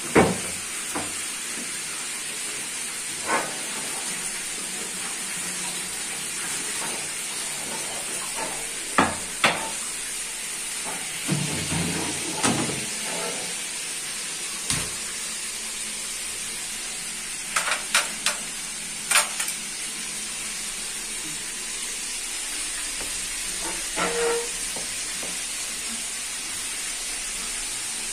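Flour-coated chicken legs deep-frying in sunflower oil over medium heat, a steady high sizzle. A few scattered sharp knocks and clatters come through it.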